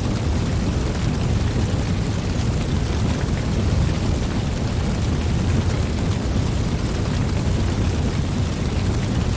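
Fire burning: a steady low rumble with faint scattered crackles.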